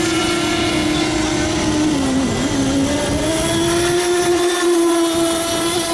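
An FSR-O radio-controlled racing model boat's small two-stroke engine runs flat out with a high, steady whine. Its pitch sags briefly about two seconds in, then climbs back and holds.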